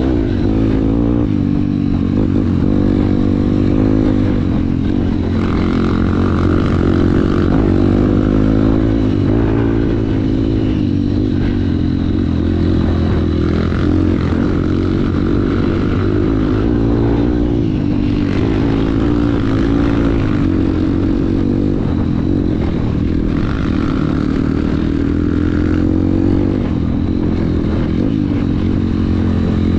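Motorcycle engine running steadily, its pitch rising and falling a little with the throttle.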